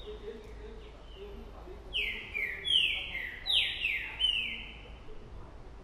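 Caged songbird singing: a quick run of six or seven loud whistled notes, each sliding down in pitch, about two seconds in. Fainter notes of the same falling shape come just before, from another bird that answers across the street.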